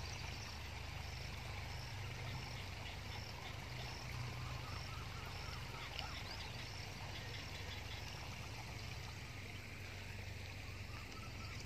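Faint outdoor chorus of small animal calls, with a short high chirp repeating steadily over a low, even hum.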